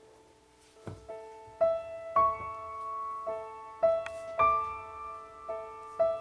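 Soft background piano music: single notes and chords struck about every half second to a second, each ringing on and fading, quieter for the first second.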